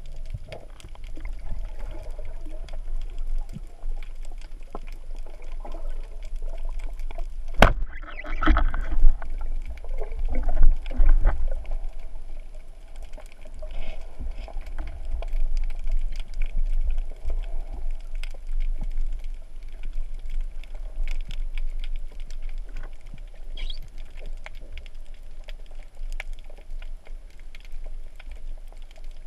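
Underwater sound heard through an action camera's waterproof housing: a steady low rumble of moving water with scattered small clicks and crackles. About eight seconds in comes one sharp click, followed by a few seconds of louder rushing and knocking.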